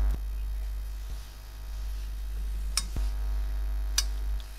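Steam iron with a hose feed being pushed over a fabric waistband strip on a padded pressing table, to fuse the strip down. A low steady rumble, with two sharp clicks, one a little under three seconds in and one about four seconds in.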